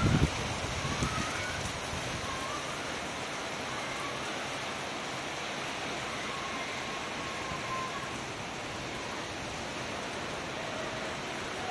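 Heavy rain falling steadily, a dense even hiss with no break. A brief low rumble comes at the very start.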